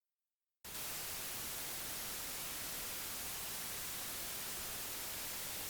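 Steady hiss of static, cutting in suddenly about half a second in and holding at an even level.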